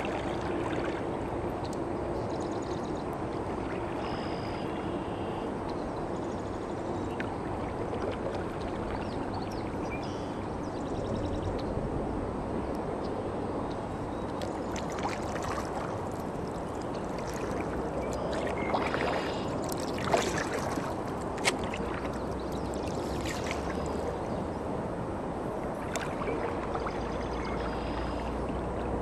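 Kayak paddle strokes in the water, with water trickling and gurgling along the hull, and two sharp clicks about two-thirds of the way through.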